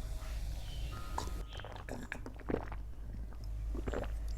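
Close-miked mouth sounds of a person eating spicy noodles: chewing and biting, with a few short wet clicks now and then.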